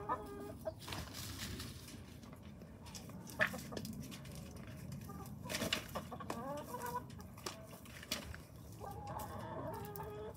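Domestic hens clucking in short bursts of calls at intervals, with a few sharp clicks in between.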